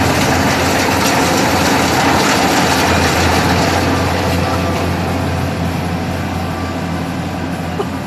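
Rice combine harvester's engine and threshing machinery running steadily as it cuts through the paddy, growing somewhat fainter over the last few seconds as it moves away.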